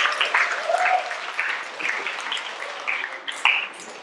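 Audience applause thinning out into scattered claps and dying away.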